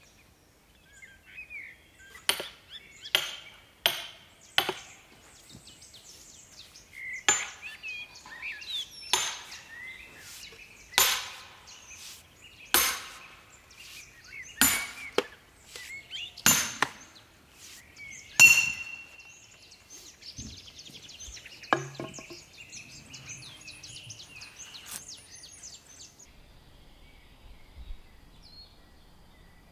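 A large beech round being split by hand: four quick strikes, then seven heavy blows about two seconds apart, the last the loudest.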